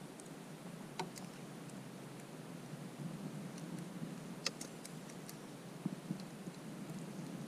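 Footsteps through snow, with a few sharp clicks, the loudest about four and a half seconds in.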